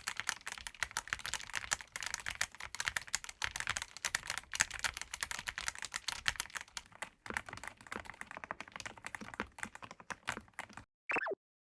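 YUNZII gasket-mount mechanical keyboard with PBT double-shot keycaps being typed on fast, a dense stream of keystrokes. The typing stops a little before the end, followed by a brief falling tone.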